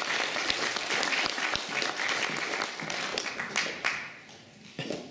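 Audience applauding, fading out about four seconds in.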